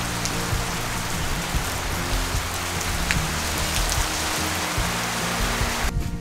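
Steady rain falling, a continuous hiss with scattered sharper drop ticks, over background music with low held notes. The rain cuts off abruptly near the end, leaving only the music.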